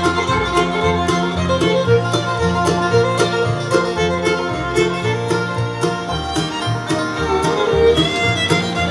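Country-style fiddle and guitar music with a steady beat and a stepping bass line, playing through a pair of Onkyo PS-A5M bookshelf speakers on test.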